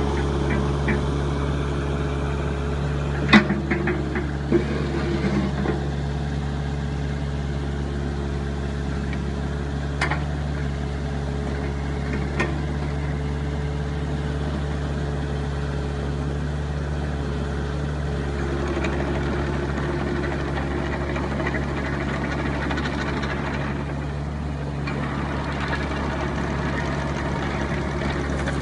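Hitachi ZX-30 mini excavator's diesel engine running steadily while the machine moves its boom and slews. A few sharp knocks come from the machine, the loudest about three seconds in and others around ten and twelve seconds.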